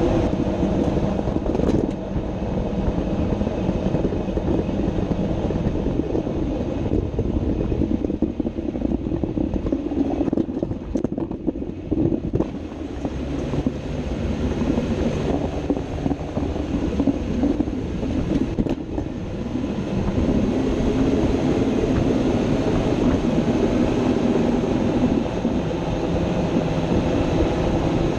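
Drivetrain and road noise from underneath a Jeep Wrangler JK on the move: a steady rumble with a droning hum whose pitch shifts, carrying the grinding noise under investigation. It eases a little about ten to thirteen seconds in, then builds back.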